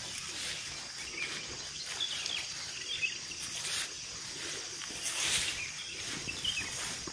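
Outdoor ambience: a steady high insect buzz with scattered short bird chirps. There is a brief rush of noise about five seconds in.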